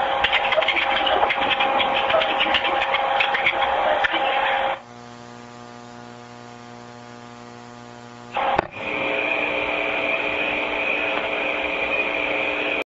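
Hiss and crackle of an old 911 telephone call recording, the open line carrying a steady tone under the noise. In the middle it drops for a few seconds to a quieter, steady buzzing hum, then the hiss comes back with a higher steady tone and cuts off abruptly just before the end.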